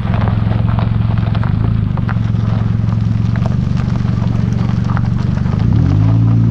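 Ford ZX2's four-cylinder engine pulling steadily as the car rolls across gravel, with small stones crackling and popping under the tyres. Near the end the engine note climbs as it revs up.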